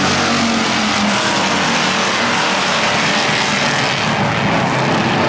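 Pure stock race car engines running as a pack circles the oval, a steady loud din that drifts slightly in pitch.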